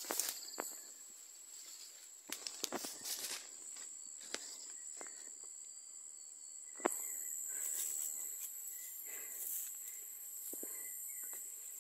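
Footsteps and rustling through leafy undergrowth: irregular soft snaps and brushing, with one sharper snap about seven seconds in. A steady high-pitched insect drone runs underneath.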